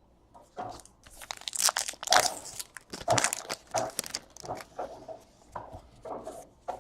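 Trading cards and foil pack wrappers being handled: a run of irregular crinkling, rustling and tearing noises, loudest about two to four seconds in.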